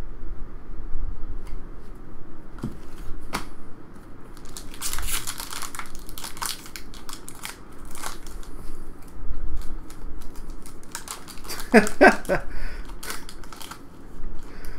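Foil wrapper of a 2015 Upper Deck Goodwin Champions card pack crinkling and tearing as it is ripped open by hand, in several bursts of crackle, the busiest about five to seven seconds in.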